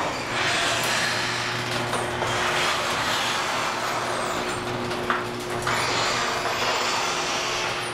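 Motorized sectional overhead garage door closing: the opener running steadily with a low hum as the door rolls down its tracks, with a sharp click about five seconds in.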